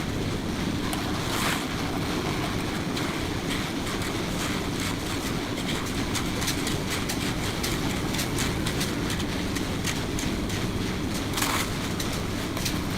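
Concrete mixer running steadily, a constant low mechanical rumble with many short clicks and scrapes over it.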